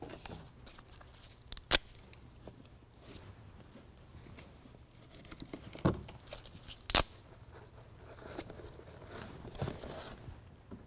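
Hook-and-loop (Velcro) fastener pieces being pulled apart and handled against a foam-backed bed liner: quiet ripping and rustling that grows near the end, with a few sharp clicks and a thump along the way.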